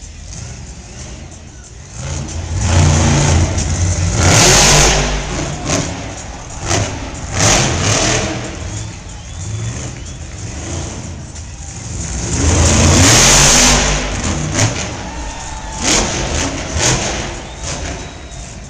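Monster truck's supercharged V8 engine revving in repeated surges as the truck spins in circles on the arena dirt. The two biggest surges come about four seconds in and again about thirteen seconds in.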